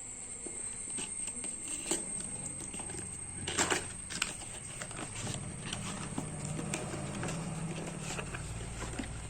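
Scattered light clicks and knocks, as from computer parts being handled, with a cluster of louder knocks about three and a half seconds in, over a steady high-pitched whine. A low hum rises in the second half.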